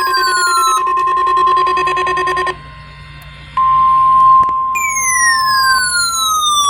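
Electronic weather-radio alert tones: a steady high single-pitch alarm tone, layered at first with other steady tones and a falling electronic sweep. It drops out about two and a half seconds in, returns about a second later, and another falling sweep runs over it near the end.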